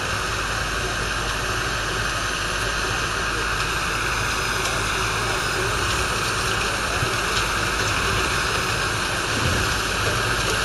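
JCB Fastrac 4220 tractor's 6.6-litre six-cylinder diesel engine running steadily, under a constant rushing noise.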